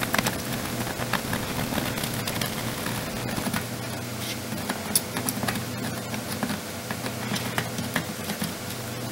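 Soldering iron melting solder and rosin flux on circuit-board pads: a steady sizzling hiss with scattered small crackles, over a steady low hum.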